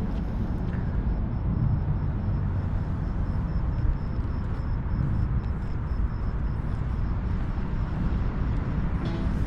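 Vehicle engine idling: a steady low rumble that holds even throughout.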